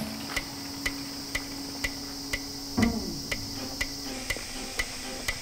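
Documentary background music: a steady ticking pulse, about two ticks a second, over a held low drone that gives way to shifting notes near the end, with a falling swoosh about three seconds in.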